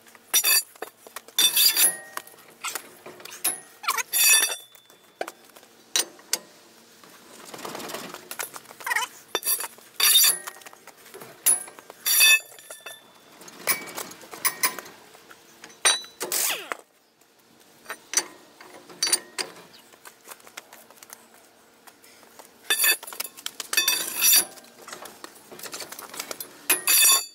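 Steel cheater pipe and breaker bar clanking on the lug-nut socket as they are handled at a truck wheel: scattered sharp metal clanks that ring briefly, bunched near the start, through the middle and again near the end.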